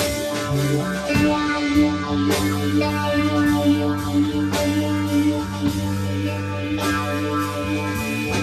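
A live band playing rock music: electric guitar over long held bass notes and a drum kit, with sharp drum strikes every second or two.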